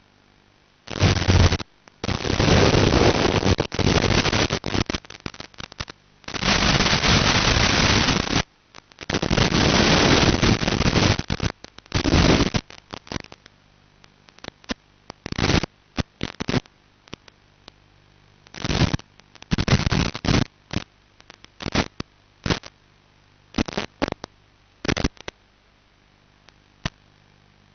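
Bursts of static hiss on an analog FPV video receiver's recorded audio channel, cutting in and out abruptly over a faint steady hum. There are long bursts of two to three seconds in the first half and shorter, choppier ones later. This is a sign of the quad's 5.8 GHz video link breaking up in an RF-noisy area.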